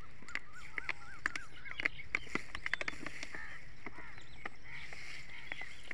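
Birds calling in many short, arched notes, with scattered clicks and crinkles of plastic pesticide sachets being handled.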